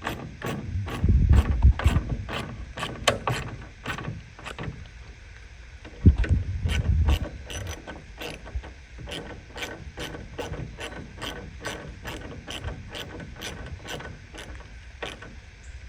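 Hand ratchet clicking steadily, about two to three clicks a second, as it drives in the 8 mm screws that hold a pickup's taillight assembly. Low bumps of handling come in twice, about a second in and again at about six seconds.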